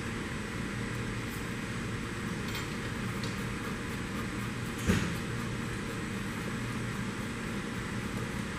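Steady hum and hiss of workshop background noise, with a few faint ticks and one sharp click about five seconds in as small hex nuts are spun down the threaded studs of a wiper basket hub by hand.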